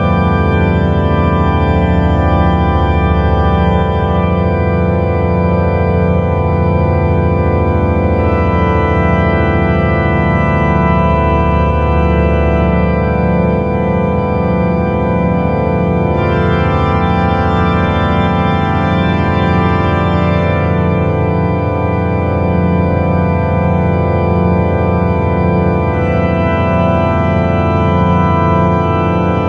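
Ambient drone music: a dense, sustained organ-like chord of held tones over a low note that pulses steadily. Brighter high tones swell in a few times, most strongly about halfway through.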